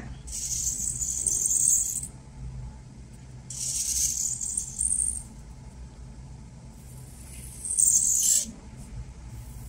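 Thick marker tip drawn along drawing paper in long inked strokes: a hiss lasting about two seconds, another a little shorter in the middle, and a brief one near the end.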